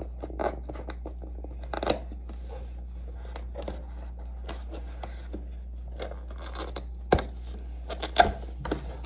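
Cardboard box being handled while fingernails scratch and pick at its sticker seal, with irregular small scrapes and clicks and a few louder knocks of the box, the loudest near the end.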